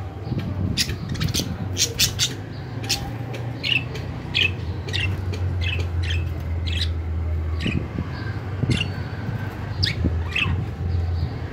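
Budgerigars chirping and squawking in short, sharp calls in quick succession, over a steady low hum.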